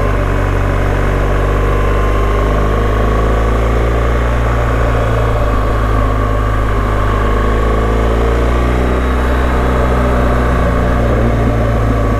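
BMW GS adventure motorcycle engine running steadily while riding along, its note rising and falling gently as the throttle changes through the bends, with steady wind and road rush heard from the rider's helmet.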